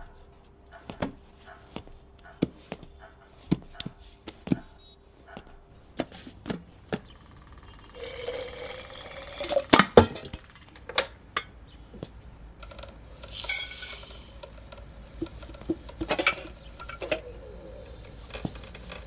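Footsteps, then kitchen clatter of coffee being made: a steel pot handled on a gas stove, liquid poured, and mugs and steel utensils knocking together in short clinks and taps. A short burst of hiss comes past the middle.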